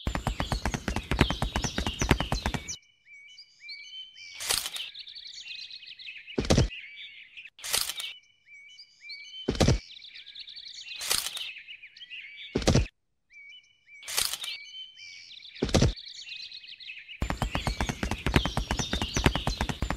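Birds chirping and twittering, with a single dull knock about every second and a half. A dense, rapid crackle of clicks fills the first couple of seconds and starts again near the end.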